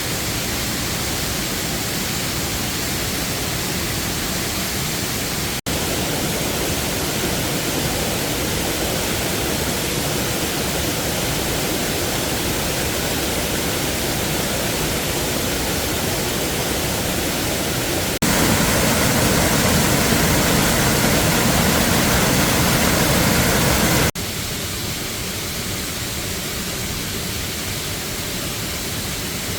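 Waterfall water rushing steadily, an even hiss of falling water. Its loudness steps abruptly three times, and it is loudest for about six seconds past the middle.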